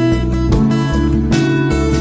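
Music led by strummed guitar chords, the strokes falling about every half second over a sustained low accompaniment.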